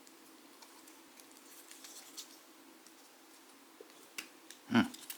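Faint clicks and light taps of cardboard kit pieces being handled and pressed together, then a single louder thump near the end.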